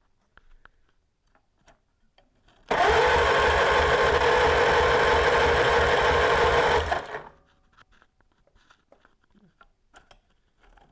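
Farmall Cub's four-cylinder engine turned over by its starter for about four seconds, starting about three seconds in, with an even rhythmic chug. It cranks without firing, with no fuel yet, while the new coil and points are checked for spark.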